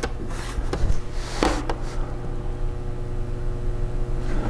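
Plastic laptop bottom cover being handled and turned up on its edge: a few light clicks and rustles in the first second and a half, then a steady low hum.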